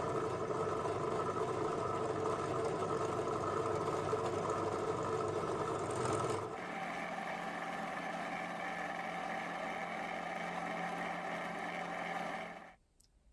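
Bench drill press motor running steadily while a small bit drills out the centre hole of a small replacement gear to enlarge it. About six and a half seconds in, the hum changes abruptly to a slightly quieter one with a different pitch, then stops suddenly near the end.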